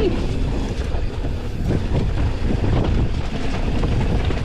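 Wind rushing over the microphone while a mountain bike rolls fast down a dirt trail, with frequent knocks and rattles as it goes over bumps.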